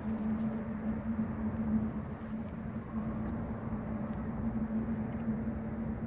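A car's steady engine hum and road noise while driving.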